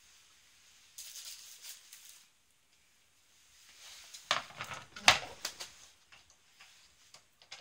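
Rustling, then a wooden dog puzzle board with plastic cones set down on a laminate floor: two sharp knocks a little under a second apart, about four and five seconds in, with the cones rattling, followed by a few light clicks as the dog noses at the cones.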